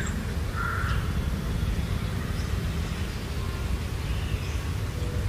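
Steady low rumbling background noise, with a short bird call about a second in and a few fainter chirps later.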